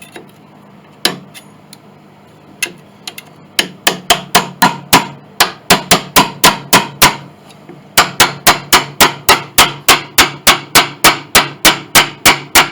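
A hammer striking a wedge again and again to break a glued joint loose: a few separate knocks, then a fast run of blows at about four a second, a brief pause, and a second steady run.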